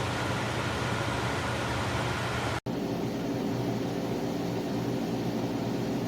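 SereneLife 12,000 BTU portable air conditioner running on high cool: a steady fan rush with motor hum. About two and a half seconds in, the sound cuts out for an instant and comes back with less hiss and a stronger low hum.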